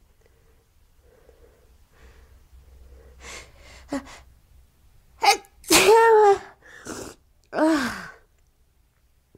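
A woman sneezing: a few sharp catching breaths build up, then a loud sneeze about halfway through, falling in pitch, and a second sneeze about two seconds later.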